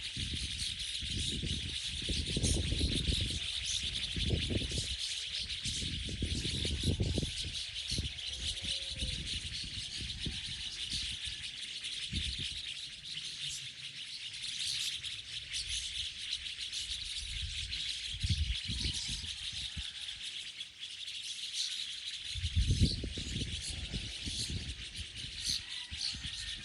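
A dense chorus of many small birds chirping at once from a tree, a steady wall of high twittering. Low rumbles come and go beneath it, mostly in the first third and again near the end.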